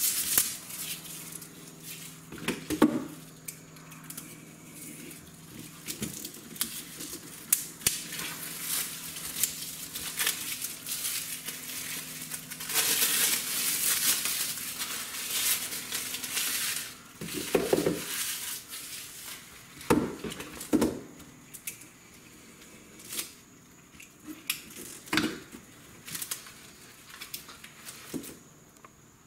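A pack of Roman candles being unwrapped by hand: plastic packaging crinkling and tearing, with scattered knocks and clicks as the tubes are handled. The crinkling is densest for a few seconds in the middle.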